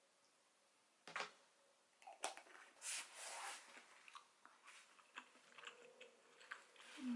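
Faint close-up eating sounds: a few sharp clicks of chopsticks against a dish, then soft chewing of a mouthful of scrambled egg in small, irregular clicks.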